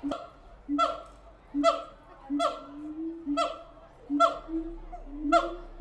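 Siamang calling in a regular series of loud whooping calls, about seven in quick succession, each rising in pitch into a sharp peak.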